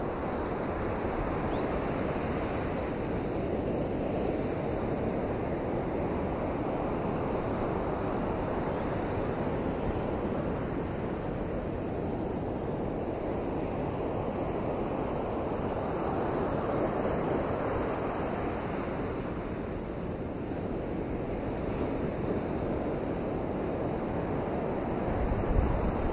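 Surf washing in under strong hurricane wind: a steady rushing that swells and eases every several seconds. Near the end, a low rumble of wind buffeting the microphone rises.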